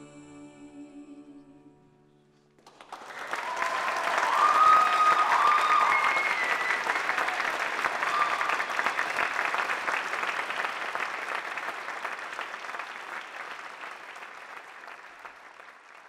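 The last held chord of a sung piece fades out, and about three seconds in an audience starts applauding, with a few whoops on top. The applause is loudest a couple of seconds later and then slowly dies away.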